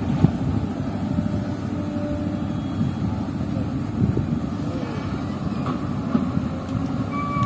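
Steady low rumble of wind buffeting the microphone by the open water, with no clear events standing out.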